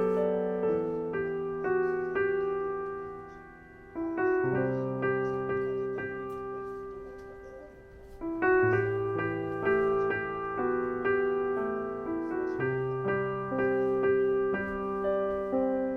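Background piano music: a gentle melody of struck notes and chords, fading briefly twice before each new phrase.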